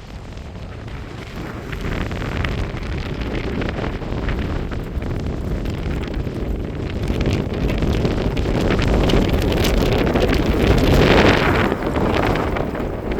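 Strong outflow wind gusts buffeting the phone's microphone, building over several seconds and strongest about eleven seconds in.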